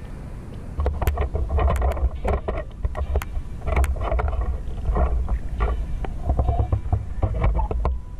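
Water sloshing and splashing close to the action camera as a person moves through a river, with repeated low rumbling knocks and sharp clicks of handling from about a second in.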